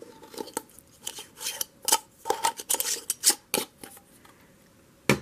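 Craft materials being handled on a work table: a run of light, irregular taps, clicks and rustles, then one sharper click just before the end.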